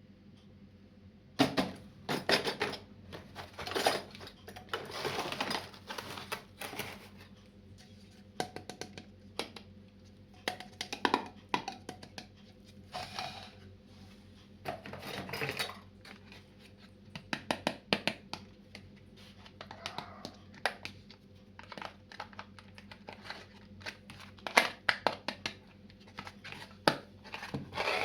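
Small plastic toy pieces and packaging being handled and unboxed: irregular clicks, taps and brief rustling, with quiet gaps between.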